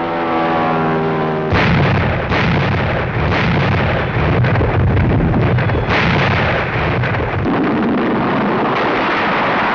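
A falling whine, then about a second and a half in a sudden loud explosion followed by continuous heavy gunfire and blasts, with sharp shots standing out every second or so: battle sound of heavy guns firing and shells exploding.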